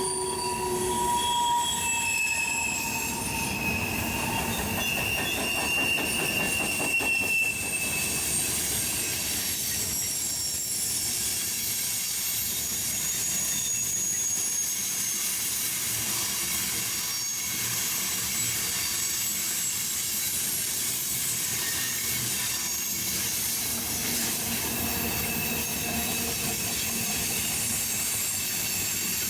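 Railroad cars rolling past with wheels squealing against the rails: several high, thin squeal tones come and go over a steady rumble of wheels on track.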